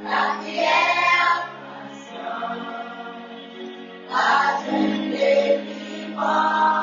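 Music with a choir singing in phrases over a steady held low note.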